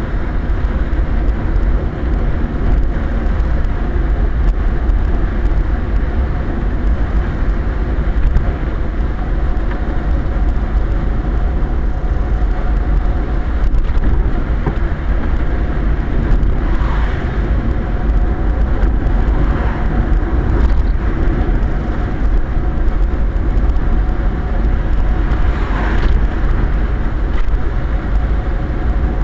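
Quest velomobile rolling fast on a wet road, heard from inside the closed shell and hood: a steady, loud low rumble of tyres and hull with a hiss of water spray, and a few brief higher rushing sounds in the second half.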